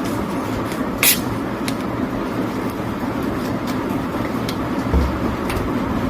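A person eating by hand, with scattered small clicks and mouth sounds, over a steady low rumble of background noise. A brief hiss about a second in and a soft thump about five seconds in.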